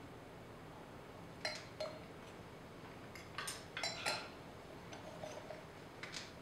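Forks clinking and scraping against a dinner plate as bites of scallop are taken. There are a couple of light clicks about a second and a half in, a busier cluster of clinks around three to four seconds in, and a few more near the end.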